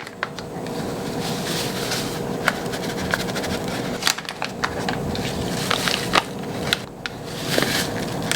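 Scattered clicks and crinkles of instant pudding mix packets being opened and emptied into a mixing bowl, over a steady fan-like hum.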